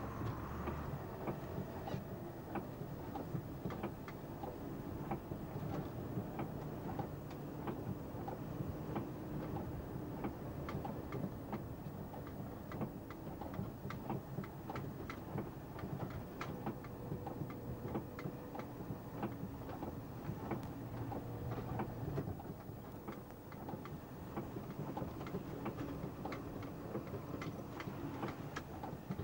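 Milk tanker lorry's engine running steadily, heard from inside the cab on the move, with many sharp, irregular ticks over the top.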